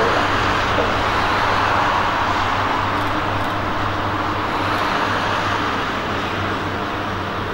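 Boeing 747-400's four jet engines running as the airliner moves away down the runway: a steady rushing jet noise with a low hum under it, slowly fading.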